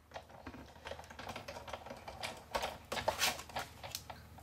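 Sizzix Big Shot die-cutting machine being hand-cranked, the cutting plates with steel dies and paper rolling through its rollers with an irregular run of clicks and crunches, loudest about two-thirds of the way in.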